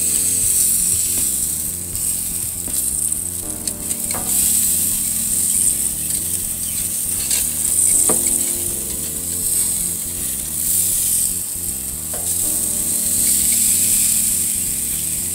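Strip steaks sizzling steadily on hot charcoal-grill grates, with a few short metallic clicks of a spatula against the grates as the steaks are turned.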